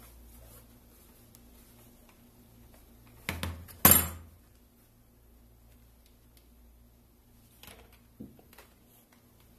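An HP laptop set down flat on a table: two sharp knocks about half a second apart, roughly three seconds in, the second the loudest. Fainter knocks and handling near the end as the lid is lifted open.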